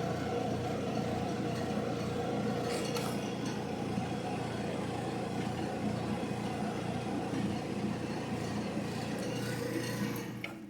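Old General Electric gas dryer running, a steady hum of the drum motor and turning drum, which cuts off near the end. No click of the gas valve is heard: the igniter lights but the valve does not open, which the repairer puts down to a failed gas-valve coil.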